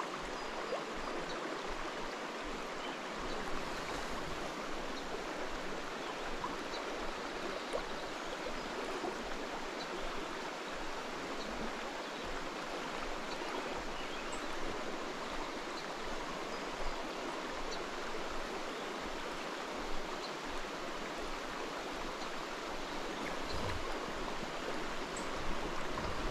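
Steady rush of a river's current flowing past. Near the end, wind starts buffeting the microphone in low gusts.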